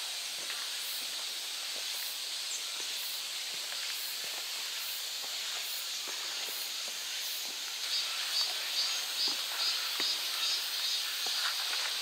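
Steady high-pitched hiss of insects in summer woodland, with faint regular pulsing. Faint footsteps on the trail begin about eight seconds in.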